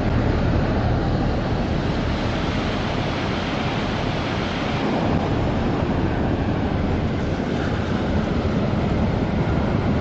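Ocean surf breaking and washing up a sandy beach, a steady rush of noise, with wind buffeting the microphone.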